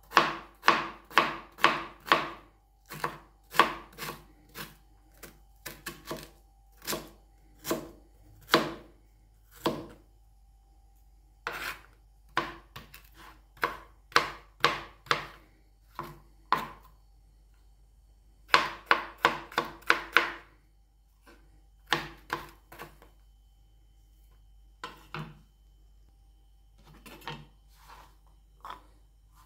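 Cleaver chopping ginger on a cutting board: quick runs of sharp knife strikes against the board, broken by pauses and growing sparser and fainter near the end.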